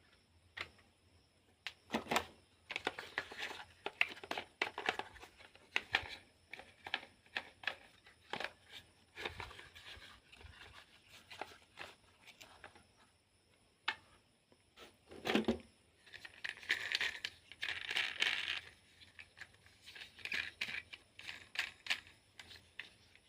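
Close-up handling of small plastic objects: irregular clicks, clacks and knocks, with crackly rustling scrapes that come in spells, the longest about two-thirds of the way through.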